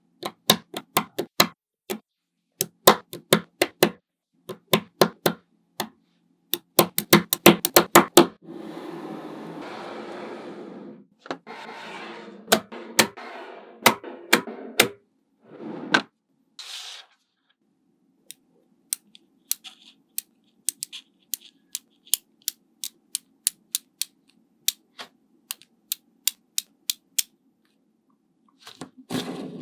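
Small neodymium magnetic balls clicking sharply as they snap onto one another, in quick runs of clicks. Between about 8 and 15 seconds a softer hissing rustle joins them.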